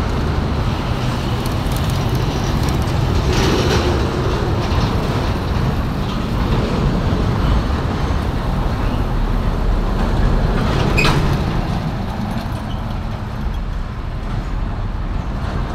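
Busy road traffic: the engines and tyres of passing lorries, minibuses, cars and motorcycles make a steady low rumble. Two brief higher-pitched sounds stand out, about three and a half and eleven seconds in.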